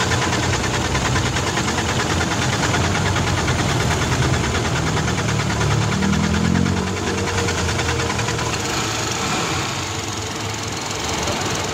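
Mitsubishi 4M50 four-cylinder diesel engine running with a steady diesel clatter. Its pitch rises briefly and falls back about six seconds in.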